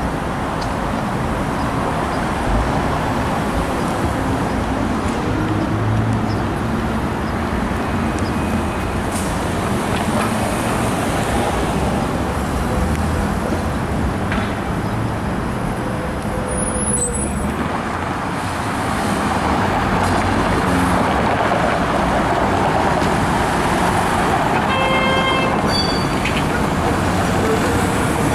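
Steady road traffic at a busy intersection: cars and streetcars passing, a continuous mix of engine and tyre noise. About four seconds before the end, short pitched toots sound.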